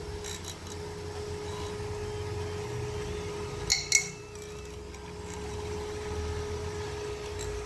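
PC cooling fan driven by a 12 V DC motor running at high speed: a steady whine over a low rush of air. Two sharp clicks about halfway through as the plastic fan frame is handled.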